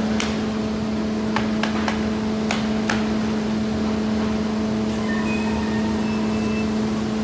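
1997 Polar guillotine paper cutter running with a steady hum and a strong low tone, with several sharp clicks in the first three seconds.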